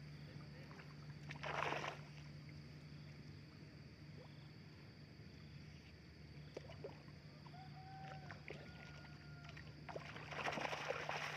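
Cast net being hauled up out of shallow pond water by hand, water splashing and running off the mesh in a short burst about a second and a half in and a longer, louder burst near the end, over a faint steady hum.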